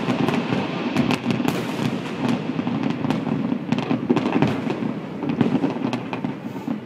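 A fireworks display going off in rapid succession: a dense run of sharp bangs and crackles that thins out toward the end.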